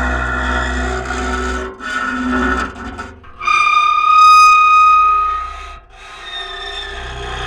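Contact-microphone recording of an object being rubbed and scraped, giving a rasping, pitched scrape. About three and a half seconds in it turns into a steady high squeal lasting a little over two seconds, the loudest part, then the scraping resumes.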